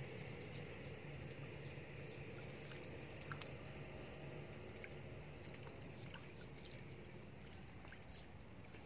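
Faint outdoor background: a steady low hum and light hiss, with a few short high chirps scattered through and one or two tiny clicks.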